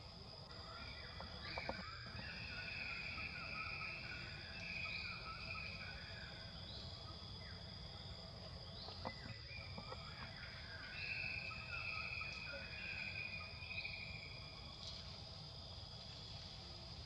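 Insects chirping: a steady high-pitched drone, a short rising chirp about every two seconds, and louder trills coming and going. A couple of faint clicks are heard, near two seconds in and again near nine seconds in.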